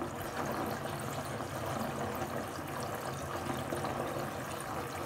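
Bath tap running, water pouring steadily into a bathtub as it fills.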